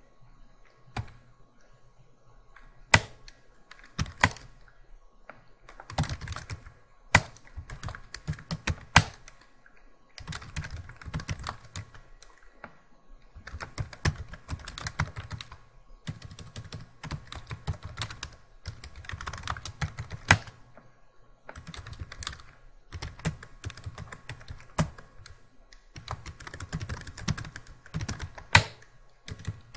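Typing on a computer keyboard in bursts of rapid key clicks, with a few louder single clicks scattered through. For the first few seconds there are only a few isolated clicks before the steady typing begins.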